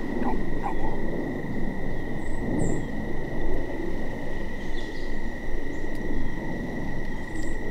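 Outdoor dusk ambience: a steady high-pitched chorus of calling insects, with a few faint high chirps, over a low rumbling noise.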